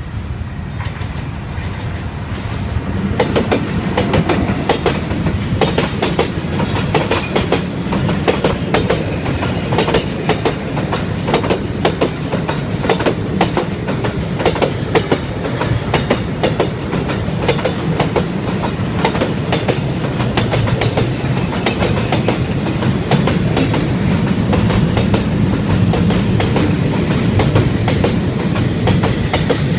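D19E diesel-electric locomotive passing close by, followed by a long freight train of boxcars and container flatcars rolling past, the wheels clattering over the rail joints in a dense, steady stream of clicks over a low rumble. It grows louder about three seconds in as the train reaches the crossing.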